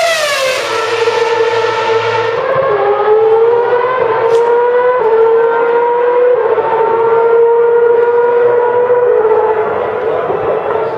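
A 2012 Lotus Renault Formula One car's V8 engine passes close with a sharp drop in pitch. It is followed by the steady high whine of Formula One V8 engines, which steps up in pitch twice over the next few seconds and eases down near the end.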